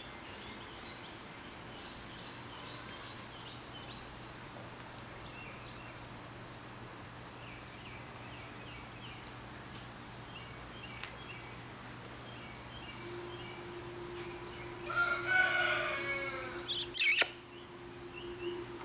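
Outdoor background with small birds chirping faintly on and off. About fifteen seconds in, one long animal call of about a second and a half, falling in pitch at the end, followed by two short bursts of noise.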